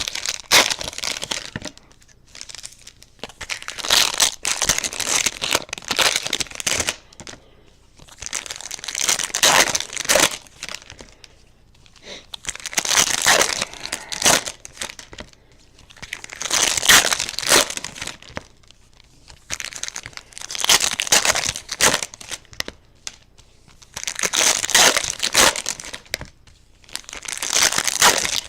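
Foil trading-card pack wrappers being torn open and crinkled, a burst of crackling every three to four seconds.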